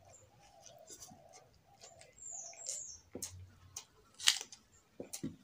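Person eating rice and vegetable curry by hand: scattered wet mouth smacks and chewing clicks, the loudest about four seconds in. A short high bird chirp sounds in the background about two seconds in.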